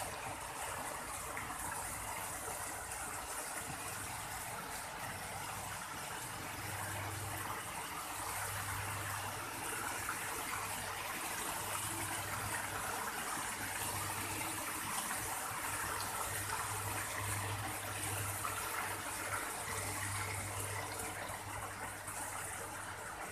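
Small bubbler fountains splashing and gushing steadily into a pond.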